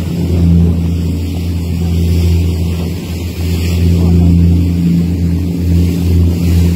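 Motorboat engine running steadily under way, a constant low hum, with a steady hiss of wind and water over it.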